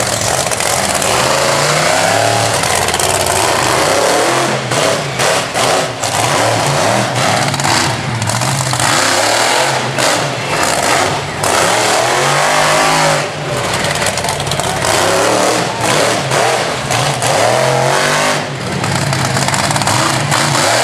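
Monster truck engine revving hard, its pitch climbing and dropping again and again as the throttle is worked.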